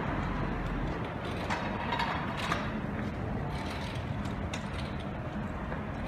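Steady street background noise with a few faint clicks and knocks, about one and a half and two and a half seconds in.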